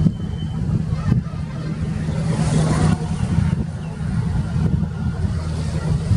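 A boat engine running with a steady low hum.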